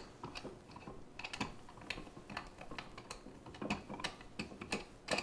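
Light, irregular metal clicks and taps as wing nuts are fitted and spun onto the threaded rods of a hand-crank cheese press.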